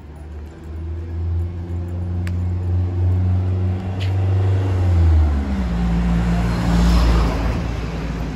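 A car coming up the street and passing close by: a low engine drone grows louder, its note falls about five seconds in, and the road noise peaks near the end.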